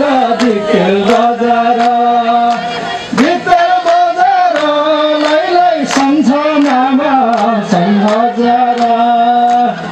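A man singing a song with long held, slightly wavering notes. Sharp beats keep time about twice a second.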